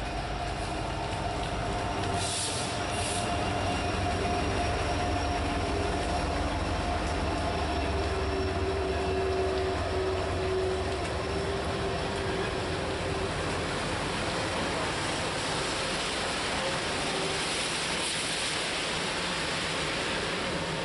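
Norfolk Southern freight train of tank cars rolling past: a steady rumble of wheels on rail, with thin, steady squealing tones from the wheels. The deep low rumble eases after about twelve seconds, and a higher, rougher wheel noise builds near the end.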